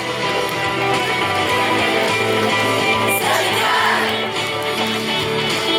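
Song music with guitar: an instrumental passage between sung lines.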